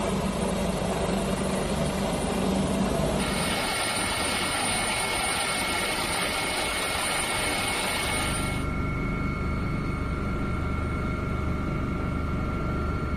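Steady engine noise that changes abruptly twice, about three seconds in and again near nine seconds, with a higher hiss and faint steady whines in the middle part.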